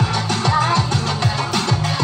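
Upbeat electronic dance music with a kick drum on every beat, about two beats a second, over a steady bass line.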